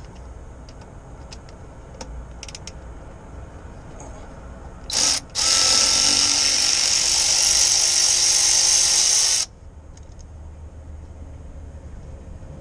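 A handheld power tool run at the air compressor's hose fittings: a short blip about five seconds in, then a steady whirr for about four seconds before it stops. A few faint clicks of handling come before it.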